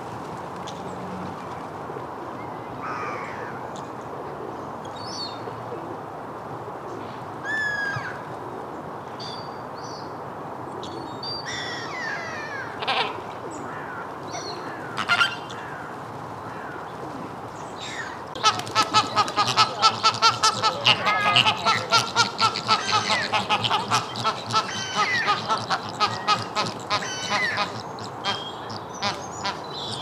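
A flock of Chilean flamingos calling: scattered single honks at first, then, about two-thirds of the way through, a loud rapid chorus of many birds honking at once, which thins out near the end.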